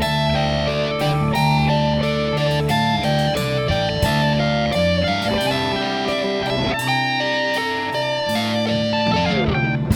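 Live rock band playing: electric guitar picking quick lead notes over bass, organ and drums, with a downward pitch slide near the end.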